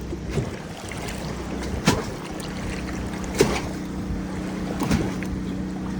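Waves from a passing wake slapping under the bridge deck of a Gemini catamaran at anchor, the hull slap known as "Gemini slap". There are four sharp slaps, about one every second and a half, over a steady low motor hum.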